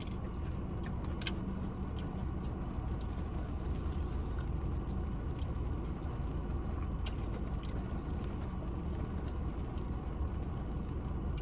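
A steady low hum throughout, with a few faint clicks and crunches from eating chips.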